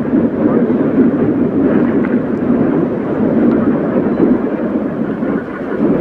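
Steady low rumbling noise of wind buffeting the microphone, with no clear motor whine.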